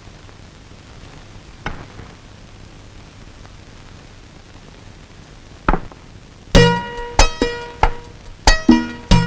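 Film background score: after a quiet stretch broken by two knocks, a run of sharp plucked string notes starts about six and a half seconds in, each note ringing briefly.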